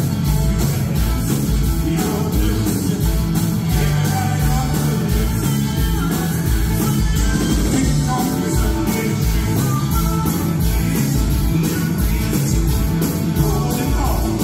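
A male singer performing live into a microphone with a band, keyboards and a steady drum beat.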